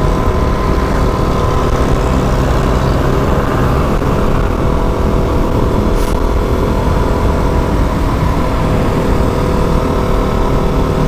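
Sport motorcycle engine running at a steady cruising speed while riding, with heavy wind noise rumbling on the rider's camera microphone.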